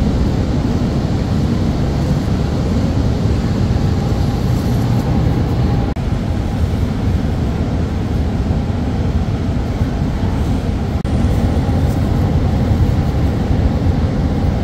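Steady low rumbling background noise, with brief dropouts about six and eleven seconds in.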